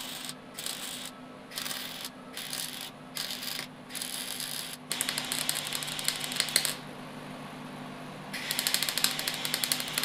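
MIG welder arcing on sheet steel: about seven short crackling bursts in the first five seconds, then two longer runs of rapid popping and sputtering, the second near the end. The welder is nearly out of shielding gas, which the owner blames for the poor welding.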